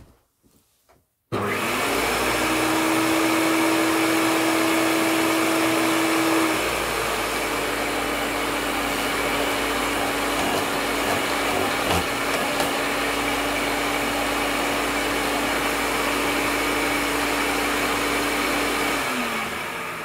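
Hoover Turbopower 1000 upright vacuum cleaner switched on about a second in, its motor running with a steady whine. About six seconds in the pitch drops slightly and stays lower as a hand presses on the spinning brush roll, which keeps turning on the new drive belt; near the end the motor is switched off and winds down.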